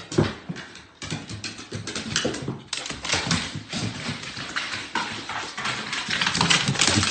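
A dog's paws and claws clattering down hardwood stairs: a quick, irregular run of clicks and thumps.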